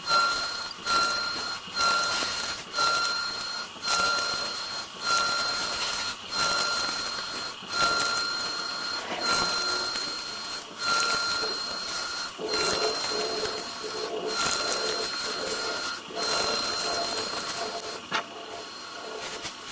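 CNC lathe cutting a round groove: a steady high whine from the cut, broken by short gaps about once a second, with a lower tone joining about two-thirds of the way through.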